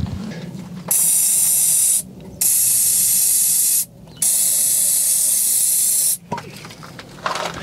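Aerosol can of Easy Start starting fluid sprayed in three steady hissing bursts of one to two seconds each into a fuel-injected engine that cranks but will not fire.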